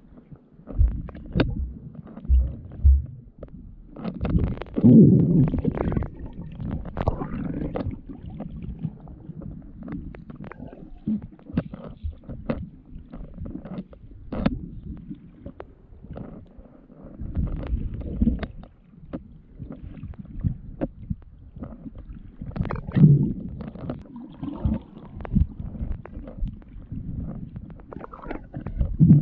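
Muffled underwater sound from a camera held below the surface while a diver swims: low rumbling water movement with scattered knocks and clicks. It swells louder about five seconds in and again past twenty seconds.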